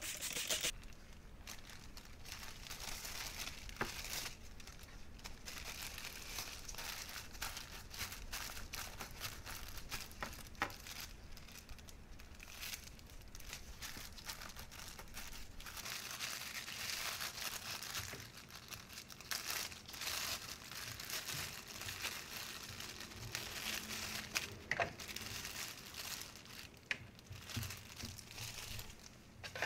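Clear plastic film crinkling and rustling as gloved hands press it down over wrapped plastic parts and then peel it off, with a few spray-bottle squirts at the start.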